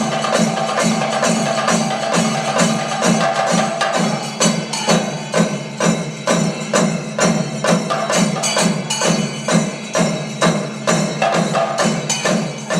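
Thayambaka on Kerala chenda drums: rapid sticking over a steady bass-drum beat, with ilathalam cymbals ringing through. From about four seconds in, loud accented strokes fall roughly twice a second.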